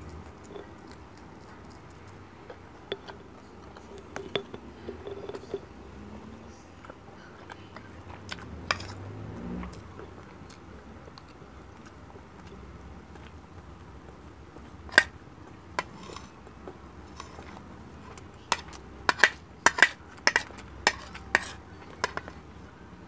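Close-up eating sounds of fried milkfish (bangus) and rice: soft chewing with scattered small clicks. Near the end, a quick run of sharp clinks from a metal spoon against the plate.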